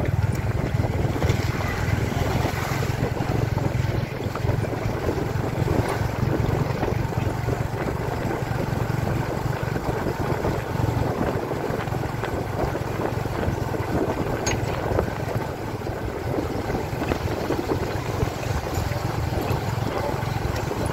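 Tuk-tuk's small motorcycle engine running steadily as it rides along a rough dirt road, with wind buffeting the microphone and the carriage rattling.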